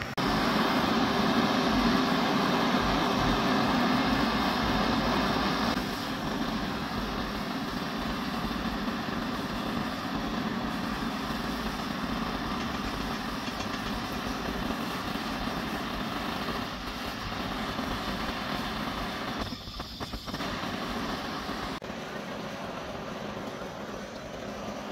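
Wood lathe running with a handheld butane torch hissing against the spinning coconut-wood vase, scorching its surface. Louder for the first six seconds or so, then a steady, somewhat quieter run.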